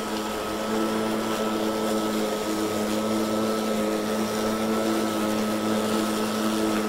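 Kobalt 80V battery-powered self-propelled lawn mower running as it cuts thick, wet grass: a steady motor-and-blade hum at an even pitch, with a thin higher whine above it.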